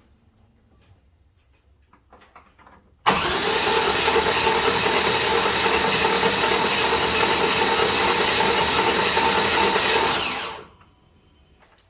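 Starter motor cranking a 6.0 LS V8 with its spark plugs out and spark and fuel disabled, spinning it with no load to build oil pressure and prime it after new rod bearings. It starts abruptly about three seconds in, holds a steady even whine for about seven seconds, then winds down. The owner judges that it sounded pretty good.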